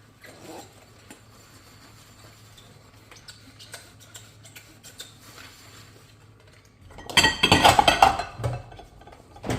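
Dishes and cutlery being handled while washing: faint scattered clinks and taps, then a loud burst of clattering about seven seconds in lasting over a second, and one more sharp knock near the end.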